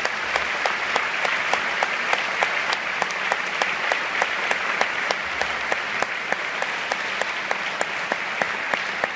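A concert audience applauding, a dense even clatter of many hands, with one person's louder claps close by repeating about four times a second.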